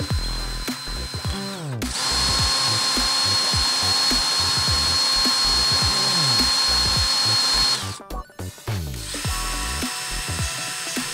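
DeWalt cordless drill running a twist bit into a metal washer, a steady high motor whine that breaks off briefly just before two seconds in and stops near eight seconds, over background music.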